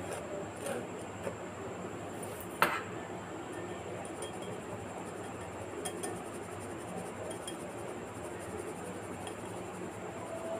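Metal spoon working flour and powdered sugar through a stainless steel mesh sieve, with soft scraping and light clinks of spoon on metal; one sharp clink about two and a half seconds in is the loudest sound.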